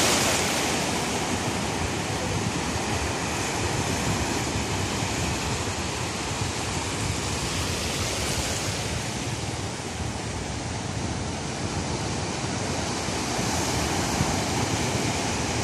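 Sea surf breaking and washing up a sandy beach: a steady rush of water that swells three times as waves break.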